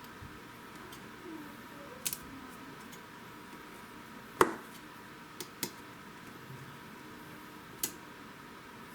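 Sharp little clicks and taps of metal tweezers and a metal pry tool working at an iPhone 7's glued-in battery, five or so scattered through, the loudest about halfway, over a faint steady hum.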